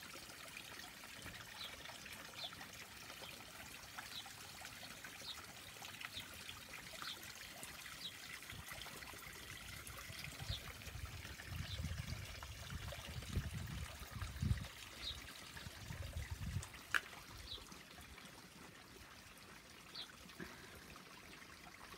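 Natural spring water trickling steadily and quietly, with a few low rumbles around the middle.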